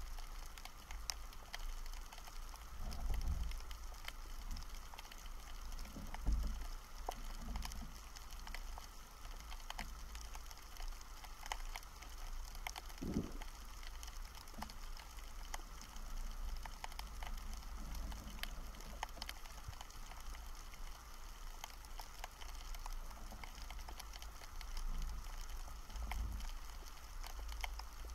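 Underwater ambience over a shallow rocky seabed, heard through an action camera's waterproof housing: a steady fine crackle of tiny clicks over a low rumble, with a few low thumps.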